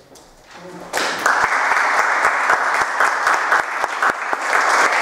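Audience applauding, breaking out suddenly about a second in after a brief lull, dense clapping.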